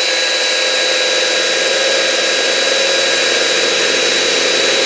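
Ryobi cordless drill running at a steady speed with a steady high whine as a small bit bores holes in a plastic bottle cap.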